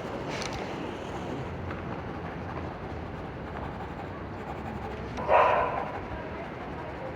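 Steady low outdoor rumble, with one short, loud call-like sound about five seconds in.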